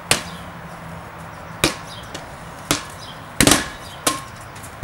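Red rubber playground ball in a handball rally, slapped by hand and bouncing on concrete: a series of sharp smacks, about six in under five seconds. The loudest is a quick double hit about three and a half seconds in.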